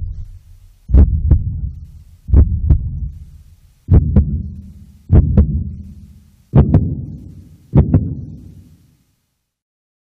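Heartbeat sound effect: six low double thumps (lub-dub), a little over a second apart, stopping near the end.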